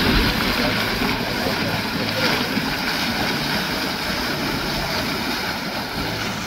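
Boiling hot spring at Yellowstone's Mud Volcano area, water churning and surging up from underground in a steady, loud rushing noise.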